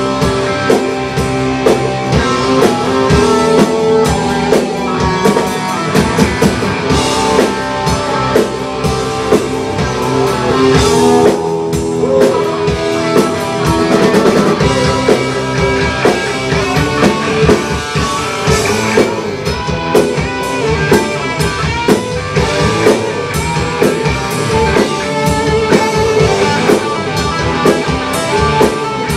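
Live rock band playing loudly, with electric guitars, bass guitar and a drum kit.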